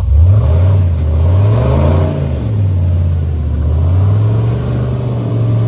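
Off-road rig's engine revving under load as the vehicle climbs a steep rock ledge. The engine note rises over the first two seconds, dips, then holds steady as the throttle is kept on.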